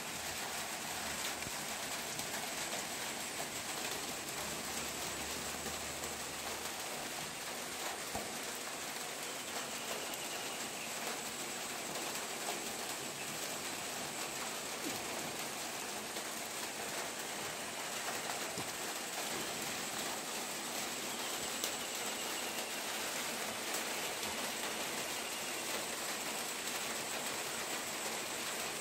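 Steady rain falling: a constant, even hiss with scattered faint drop ticks.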